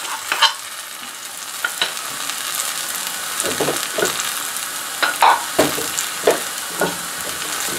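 Sliced onions frying in hot oil in a nonstick pan: a steady sizzling hiss with scattered sharp crackles and pops.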